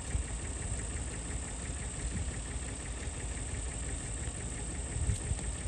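An engine idling steadily with a low rumble, from a truck or tractor standing in the yard.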